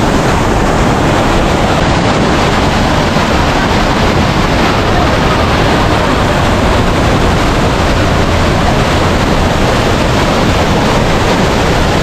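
Loud, steady rush of water from the Mardi Khola river.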